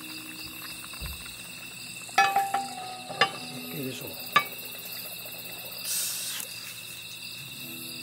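Insects chirping steadily, with a few sharp metallic clinks and knocks of camp cookware about two, three and four and a half seconds in.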